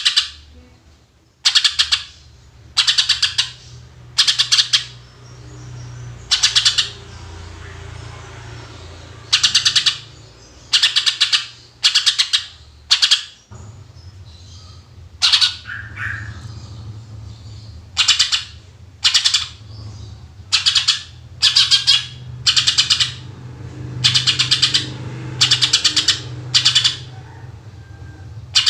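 Cucak ijo (green leafbird) singing in loud, rapid trilled bursts, each under a second long, coming about once a second, over a low steady hum.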